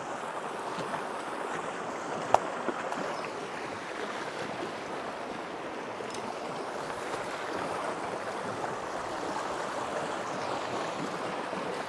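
Creek water running steadily, with a single sharp click about two seconds in.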